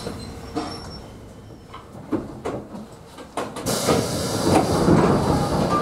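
Kotoden electric train standing at a platform: a few knocks and clicks, then about three and a half seconds in, a loud hiss of compressed air with rattling as the pneumatic doors open.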